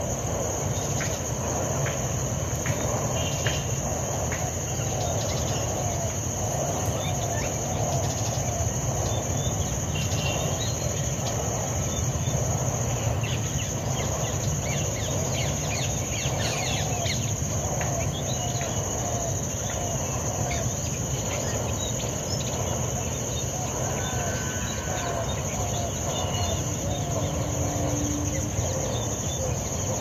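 Steady high-pitched drone of insects, with a low rumble beneath and scattered short bird calls over it.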